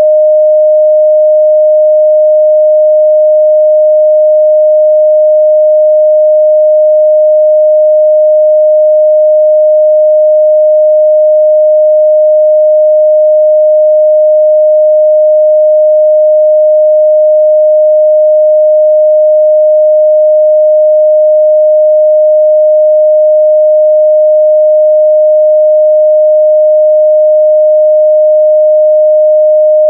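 A pure 614 Hz sine-wave test tone, held steady and loud at one unchanging pitch.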